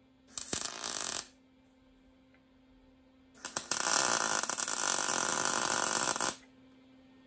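MIG welder arc welding a bolt onto a steel plate, with sparks flying. A short burst just under a second long comes first, then a longer run of about three seconds.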